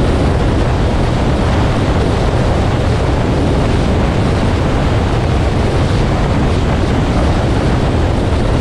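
Steady, loud road and wind noise from a moving 2018 Nissan Armada, heavy at the low end, with no change in pitch or level.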